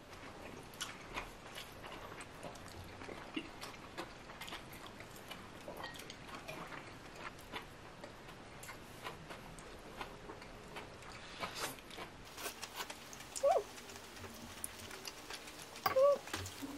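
Close-up eating sounds: chewing spaghetti, with many light clicks of a metal fork and spoon against a ceramic pasta plate. Two short pitched sounds come about 13 s and 16 s in.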